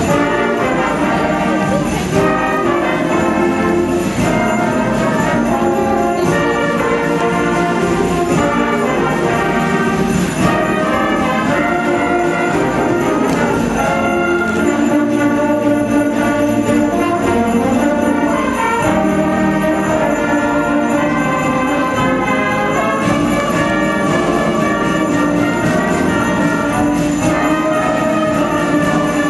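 High school concert band playing, with brass and woodwinds holding chords and bells jingling along.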